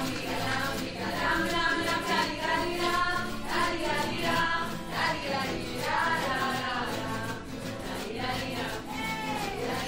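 Singing with musical accompaniment: the voices hold long, wavering notes over a steady low backing.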